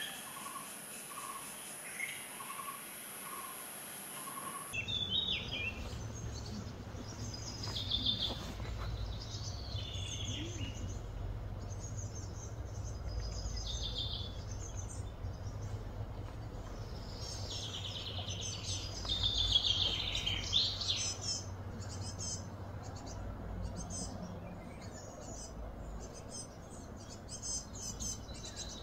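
Birds chirping and calling in scattered bursts of quick, high notes, over a steady low rumble. In the first five seconds, before a cut, a short call repeats about twice a second over a steady high buzz.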